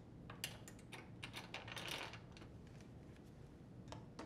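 Light clicks and taps of a small metal screw being handled and set against the sheet-metal top-panel bracket of a washer. The clicks come in a quick series over the first two and a half seconds, with a brief scrape about two seconds in and a couple of stray taps later.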